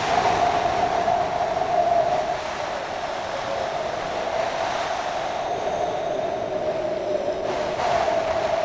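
Electric RC model MiG-21's Monster Power 60 brushless motor and nose propeller running in flight: a steady tone over a rushing hiss.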